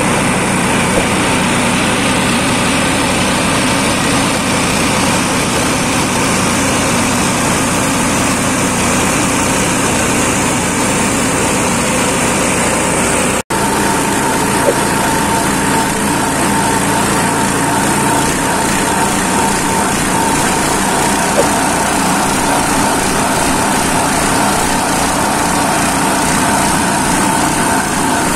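Small single-cylinder petrol engine driving a D-Veron grass and dry-leaf grinder, running steadily at speed while dry leaves and cogon grass are fed in and shredded. After a momentary break about halfway, a steady high whine stands out over the engine.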